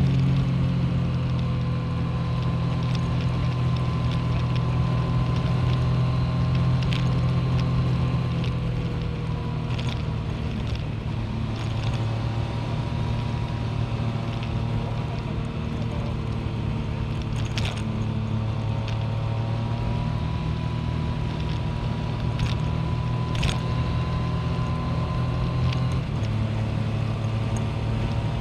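Yamaha MT-09 three-cylinder motorcycle engine running steadily at low revs, with no revving, and faint higher tones drifting slowly in pitch above it.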